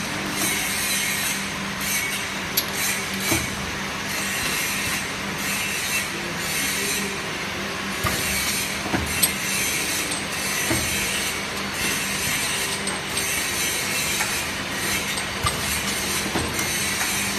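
Automatic multi-nozzle liquid filling line running: a steady mechanical clatter over a constant low hum, with a few sharp clicks and knocks scattered through it.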